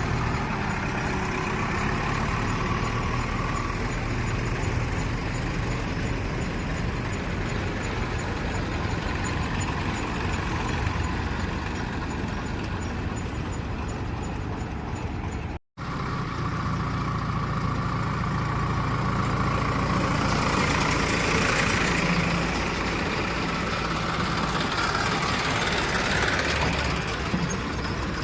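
Heavy diesel machinery engine running steadily. It cuts out abruptly for a split second a little over halfway, then runs louder in the last third.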